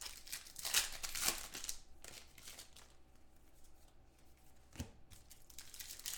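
Wrapper of a 2015 Contenders football card pack crinkling and tearing as the pack is opened, in a few short rustling bursts in the first two seconds, then softer rustling, with a single knock about five seconds in.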